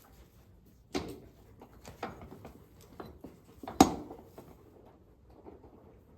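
A few sharp knocks and clatters of tools and gear while mucking out a horse stall, the loudest about four seconds in, with lighter knocking and rustling between them.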